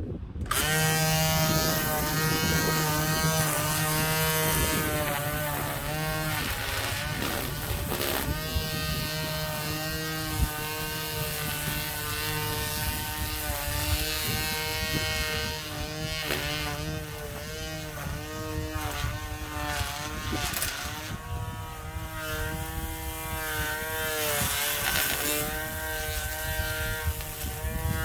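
Lawn mower running, its pitch wavering up and down as the load changes.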